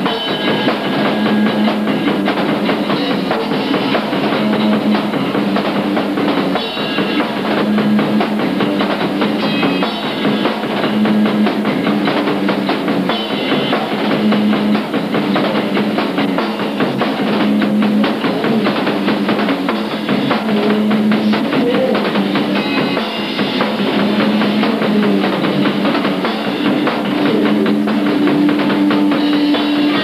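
Punk rock band playing live: a drum kit keeps a busy beat under electric guitar and bass that repeat a low riff.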